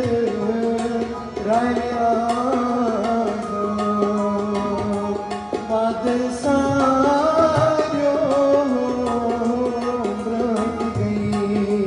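A man singing a song into a microphone, his voice holding and bending long notes, with tabla accompaniment playing quick strokes underneath.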